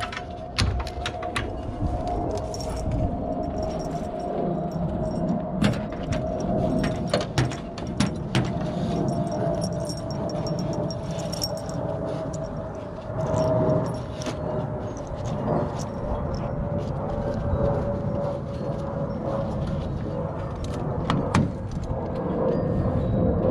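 Scattered metal clicks and clinks from a van's ladder-rack clamp and strap buckle being worked by hand, over a steady hum that slowly sinks in pitch.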